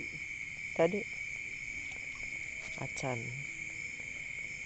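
Dense chorus of crickets, a steady high-pitched trill that never lets up, with two short spoken words over it.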